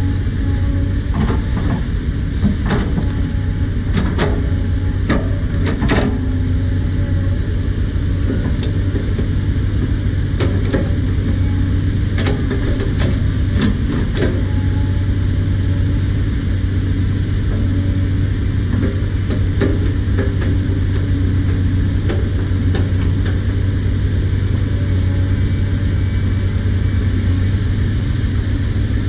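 Caterpillar 320D L hydraulic excavator's diesel engine running steadily with a low hum while the machine digs. Scattered sharp knocks and cracks from the bucket tearing at soil and roots come mostly in the first half.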